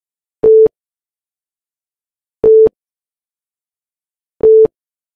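Countdown timer beeping: three short, steady, mid-pitched electronic beeps, one every two seconds, each marking a tick of the count, with a click as each starts and stops.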